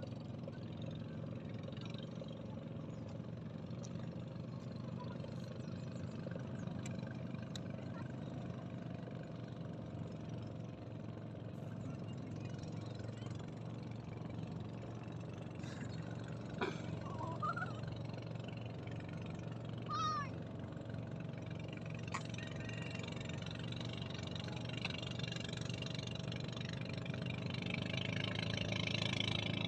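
Boat engine running steadily, with a few short chirps about halfway through; the sound grows louder and hissier near the end.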